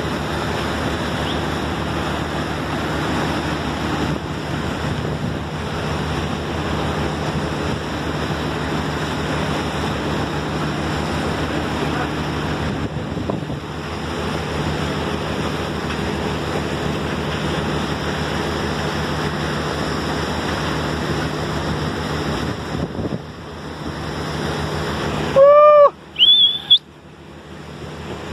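Steady wash of wind on the microphone and water rushing past a moving boat, over the constant low hum of its motor. About 25 seconds in, a brief, very loud pitched call rises and falls, followed by a short high squeak.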